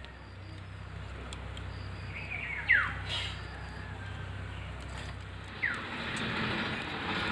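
A bird calls twice, each a short, loud, falling whistle, about two and a half seconds in and again near six seconds, over steady outdoor background noise. A soft hiss swells near the end.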